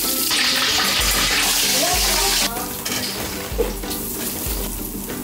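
A stream of liquid poured into a wok of hot frying oil, a splashing pour over bubbling oil that stops suddenly about two and a half seconds in. Background music continues underneath.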